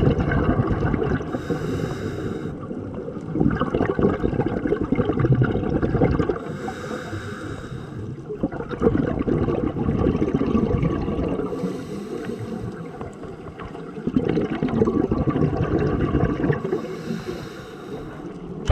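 Scuba diver breathing through a regulator underwater: a short hiss on each inhale, then a longer burst of bubbling on each exhale, about four breaths in a slow, even rhythm.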